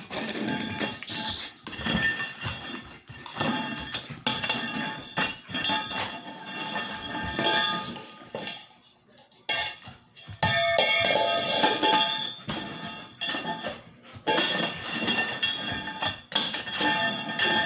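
Stainless steel dog bowl clanging and skidding on a hardwood floor, batted again and again by a German Shepherd's paw, each knock leaving a metallic ring, with a short lull about halfway through.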